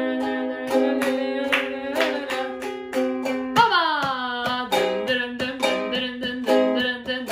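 Ukulele strummed in a steady rhythm, about four strums a second, with a woman singing along; a little past halfway a sung note slides down.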